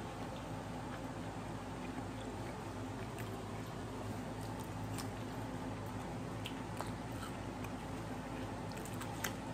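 A person eating, with a few faint bites and clicks over a steady background hum.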